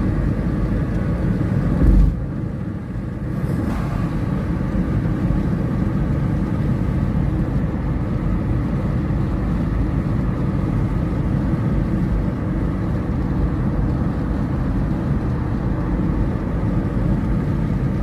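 Steady road and engine noise heard from inside a car's cabin while it drives at motorway speed, with a brief low thump about two seconds in.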